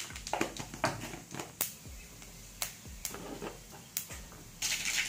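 Mustard and fennel seeds popping in hot oil in a steel kadai while tempering: scattered sharp pops at first, thickening into a dense crackling sizzle near the end as the seeds splutter.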